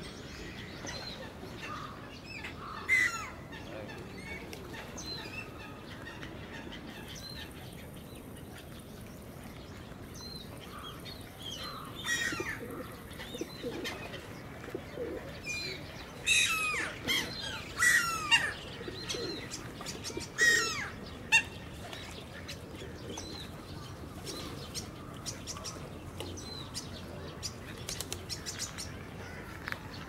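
A flock of black-headed gulls calling with short, harsh, falling cries: a loud one about three seconds in, then a busy run of overlapping calls through the middle.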